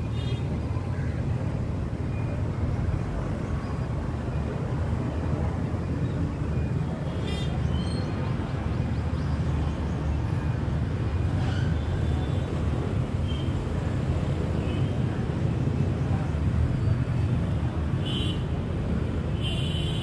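Steady low outdoor background rumble, with a few brief faint high sounds about seven seconds in, about eleven seconds in, and near the end.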